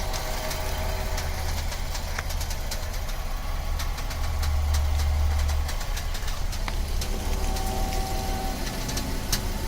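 VW Atlas idling while the steering is worked from lock to lock, its low engine drone growing louder for a couple of seconds about halfway through. Scattered short clicks and creaks come from the electromechanical power-steering gear: the creak that TSB 48-20-01 puts down to too much tension between the power-steering servo motor unit and the steering gear housing.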